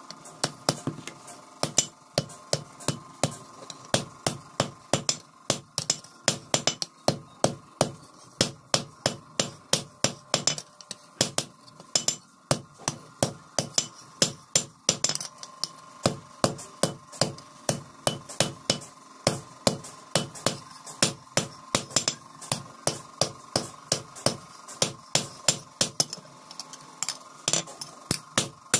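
Hand hammer forging a red-hot steel knife blade on a railway-rail anvil: a long, regular run of sharp metallic blows, about two to three a second. A faint steady hum runs underneath.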